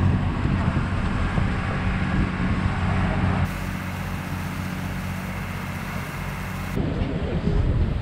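Steady low drone of a passenger ferry's engine under way, mixed with water and wind noise. For a few seconds in the middle the drone gives way to a softer, even hiss of the wake rushing along the hull, then the drone comes back near the end.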